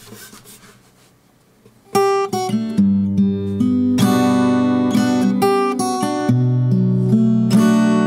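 Baton Rouge X11S parlor acoustic guitar, solid spruce top with mahogany back and sides, played fingerstyle with a capo. After a quiet pause of about two seconds, picked notes and chords start again, with the bass notes shifting from note to note.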